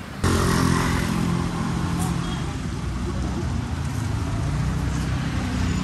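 A motor vehicle's engine running close by, with road traffic noise. It starts abruptly a moment in and then holds steady.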